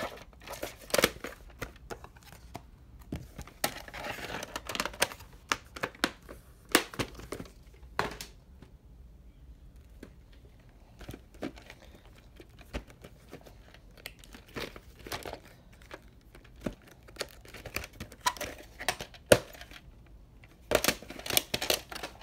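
Plastic VHS clamshell cases and a cassette being handled: irregular clicks, snaps and knocks of hard plastic, with bursts of rustling.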